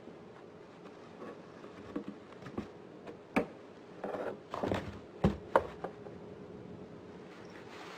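A cat moving about in a cardboard box: scattered scrapes and knocks, busiest about halfway through, with a few sharper knocks.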